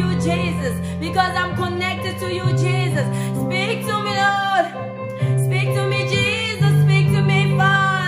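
A woman singing a slow worship song over instrumental backing, with held bass notes that change every second or so under her wavering melody.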